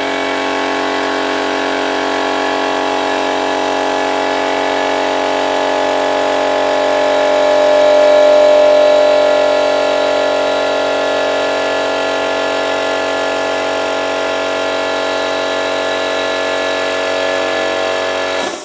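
Project Air 2.5 horsepower air compressor running loud and steady, its motor and pump giving a drone of many even tones that swells slightly midway. It is switched off near the end.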